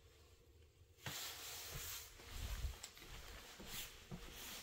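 Faint steady hiss starting about a second in, with a few soft knocks of something being handled.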